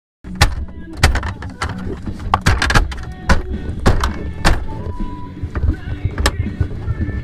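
Plastic dashboard trim panels of a 1999 Dodge Ram 2500 being handled and pressed into place, with many sharp clicks, snaps and knocks of hard plastic against the dash.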